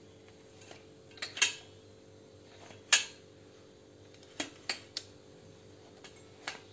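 Light clinks of steel and glass dishes on a steel serving plate as the bowls and bread rolls are set in place: about six short clinks, the loudest about three seconds in.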